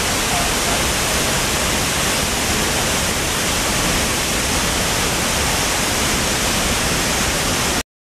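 Tall waterfall plunging into its pool: a steady, even rush of falling water. It cuts off suddenly just before the end.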